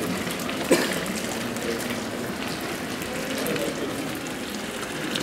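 Steady hiss and crackle at a bell-casting pit, where molten bell bronze and glowing charcoal burn at the freshly filled mould, with one sharp crack under a second in.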